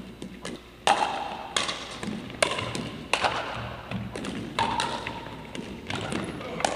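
Pickleball paddles hitting a hard plastic pickleball: about half a dozen sharp pops at uneven intervals, some with the ball bouncing on a hardwood gym floor. Each pop rings briefly and echoes off the gym walls.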